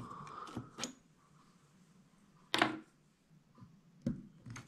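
Small clicks and knocks of a soldering iron and bullet connectors handled in a metal bullet-holding jig while desoldering the connectors from ESC wires. There are four or five separate clicks, the loudest about two and a half seconds in, over a faint hiss in the first second.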